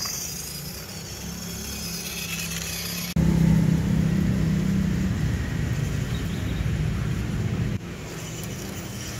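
Small-scale RC 4x4 trucks driving, their electric motors and gear drives whirring steadily. It turns much louder about three seconds in and drops back near the end.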